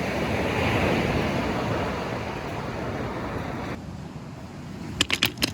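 Sea waves washing onto the beach, a steady rush that swells about a second in. Around two thirds through the rush drops off abruptly to a quieter background. A few sharp clicks follow near the end.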